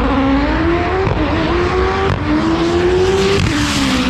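Drag race car accelerating hard down the strip, its engine pitch climbing steadily and dropping sharply at gear shifts, once about two seconds in and again near the end.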